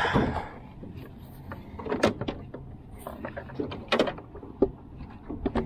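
YETI hard cooler being opened: its rubber T-latches unhooked and the lid handled, giving a handful of separate sharp knocks and clicks.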